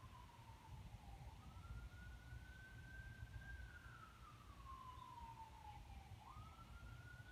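Faint siren wailing, its pitch sliding slowly down and then jumping quickly back up, about once every four to five seconds, over a low steady rumble.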